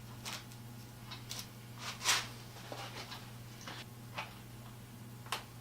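Masking tape being peeled off the end of a wooden vise handle: short, irregular crackles and rustles, the loudest about two seconds in, over a steady low hum.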